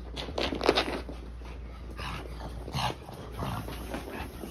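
Two small dogs, a pug and a white fluffy dog, playing and making short growls and whines, in several irregular bursts; the loudest is about half a second in.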